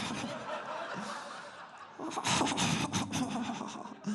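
Audience laughing in a comedy show. The laughter eases a little after about a second and a half, then swells again about two seconds in.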